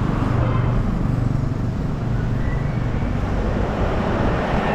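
Road traffic: motor vehicle engines running along the street, a steady low hum under a wash of road noise.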